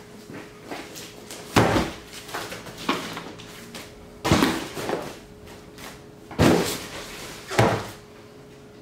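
Cardboard shipping boxes set down and handled on a wooden table: four loud thumps with quieter knocks and cardboard handling between them.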